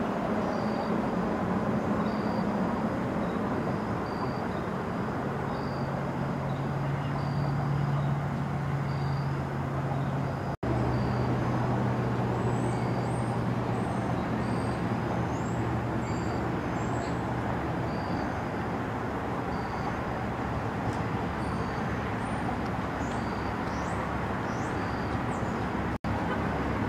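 Outdoor ambience of a steady low motor hum and traffic-like noise, with a faint high chirp repeating a little more than once a second and a few short high chirps over it. The sound cuts out abruptly twice, about a third of the way in and near the end.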